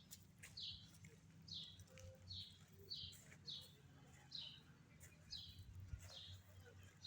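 A small bird chirping faintly and repeatedly: short, falling chirps about once or twice a second, over a faint low hum.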